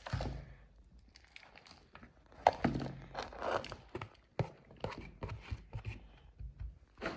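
Garden soil being scooped and poured into a small plastic planter tray: irregular rustling and crunching with scattered light knocks, the sharpest about two and a half seconds in.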